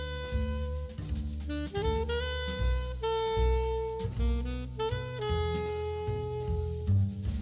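Background jazz music: a saxophone-like lead playing held notes over a drum beat.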